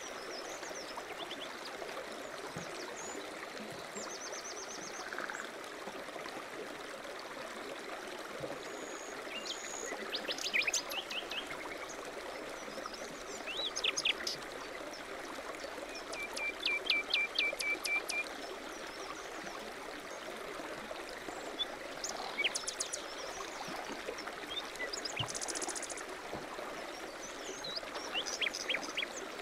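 Nature ambience: water running steadily, with small birds chirping and trilling over it. About halfway through there is a run of quick, evenly repeated notes.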